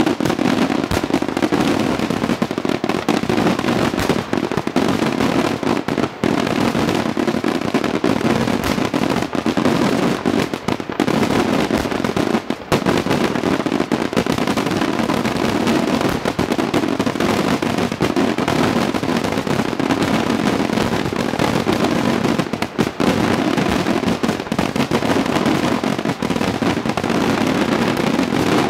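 Aerial firework shells bursting in a dense, unbroken barrage of loud bangs, one on top of another throughout.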